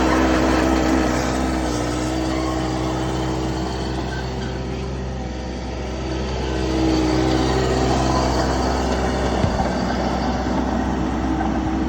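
Mini skid steer's diesel engine running steadily, easing off a little around the middle and picking up again about seven seconds in.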